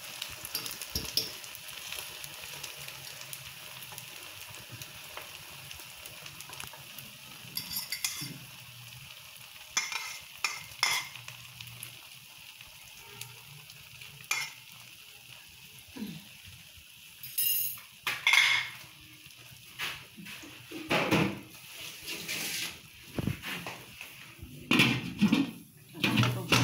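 Vegetable omelette sizzling in a frying pan with a steady hiss, while a fork scrapes and taps against the pan. In the last several seconds come louder metal clatters and knocks of steel pots and a lid being handled.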